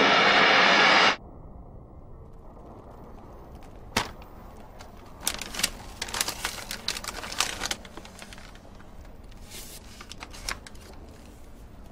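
A loud rushing noise cuts off abruptly about a second in. After it, a brown paper bag is opened and crinkled by hand in short bursts of crackly rustling.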